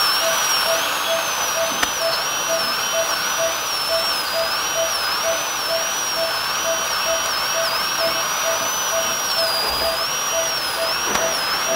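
High-speed dental air-turbine handpiece whining as its bur cuts a primary front tooth during crown preparation. The pitch wavers and dips as the bur bites into the tooth. Underneath, a short low beep repeats at a quick, even pace.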